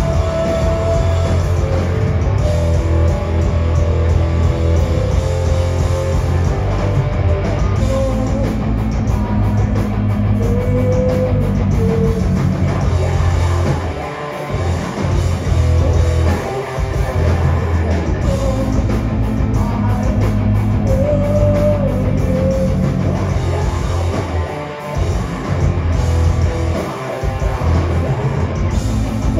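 Live rock band playing loud: electric guitars, bass and drum kit, with a singer's voice over them. The low end drops out briefly twice, about fourteen and twenty-five seconds in.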